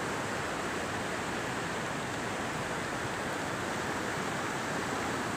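River water flowing, a steady rushing noise.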